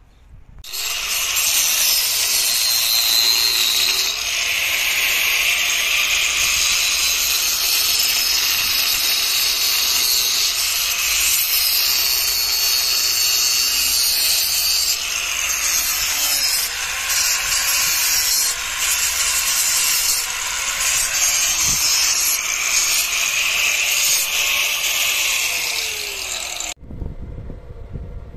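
A power tool cutting or grinding metal, running continuously with a faint motor tone that sags and recovers as it bites. It starts abruptly about a second in and stops abruptly shortly before the end.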